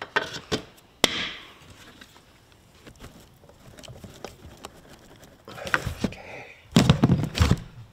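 Hard clicks and knocks of plastic and metal soft-top frame parts being handled and fitted together over a cardboard box, with a sharp knock about a second in and a heavier clatter of bumps near the end.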